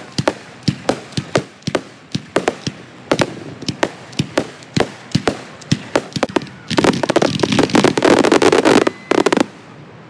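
Aerial fireworks display: a steady run of separate sharp bangs, about two or three a second, then, from about seven seconds in, a dense rapid crackle of many reports for a couple of seconds that stops abruptly.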